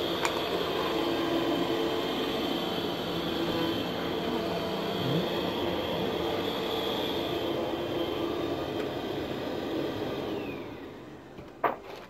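Steady mechanical running noise with a hum, which winds down with a falling pitch about ten seconds in, followed by one sharp click near the end.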